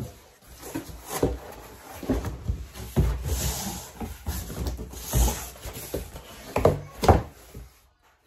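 Flaps of a large cardboard box being opened and folded back by hand: irregular thuds, scrapes and rustling of the cardboard.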